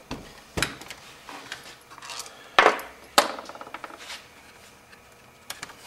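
Sharp plastic clicks and knocks from a laptop's top case being pried and lifted off its base as its snap clips let go. The loudest click comes about two and a half seconds in, with a second sharp one just after.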